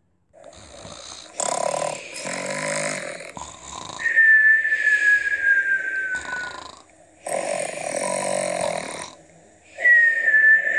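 Cartoon-style snoring, two cycles: a rasping snore, then a long whistle that slides slightly downward in pitch.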